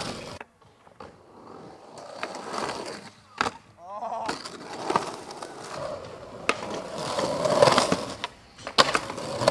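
Skateboard wheels rolling and carving on the concrete of an empty swimming pool, the rolling noise rising and falling, with several sharp clacks of the board and trucks hitting the pool's coping and walls.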